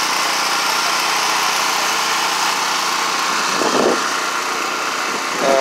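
An engine idling steadily: a constant hum with several steady tones. A brief pitched sound cuts in about four seconds in.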